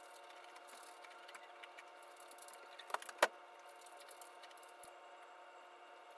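Steady low room hum with two sharp knocks about a quarter second apart, about three seconds in, the second the louder.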